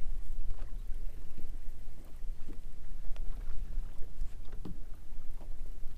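Wind rumbling on the microphone and water slapping against a bass boat's hull, with scattered small clicks and knocks. A faint steady hum comes in about two seconds in and fades out a second or so later.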